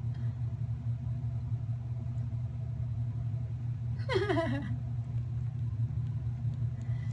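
A steady low hum, with one short, falling, voice-like cry about four seconds in.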